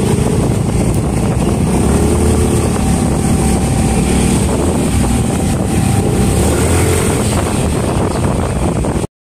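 Motor scooter engine running while riding along a road, with wind rushing over the microphone; it cuts off suddenly near the end.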